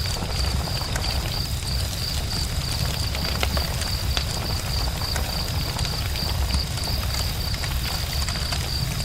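Campfire burning, its wood crackling with scattered small snaps over a low rumble, under a steady high-pitched tone.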